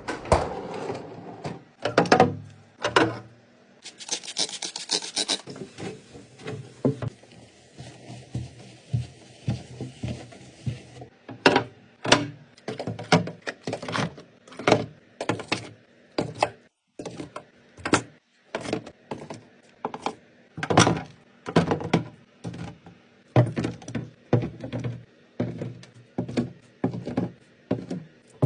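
Food containers being handled and set down while stocking a fridge: a steady string of sharp taps and knocks, about one or two a second, with a short hiss about four seconds in.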